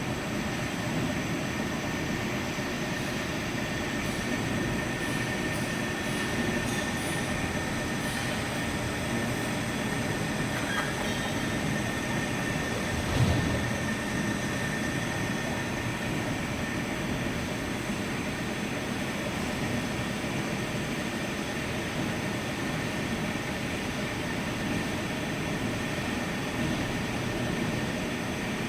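Center lathe running steadily, a mechanical rumble with a thin high whine, with one brief louder knock about 13 seconds in.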